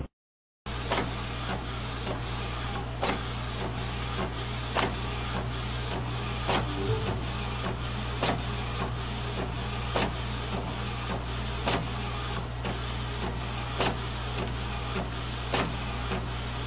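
Printer running through a print job: a steady mechanical noise over a low hum, with a sharp click a little under once a second.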